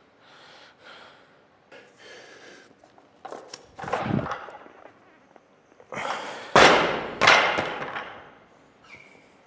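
Olympic barbell loaded to 105 kg with Eleiko bumper plates being snatched, with a rush of effort about four seconds in. About six seconds in it is dropped onto the lifting platform and lands with loud bangs, bouncing once more before settling.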